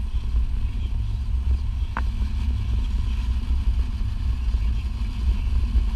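Steady low road and engine rumble inside a moving car's cabin, with a single short, high blip about two seconds in.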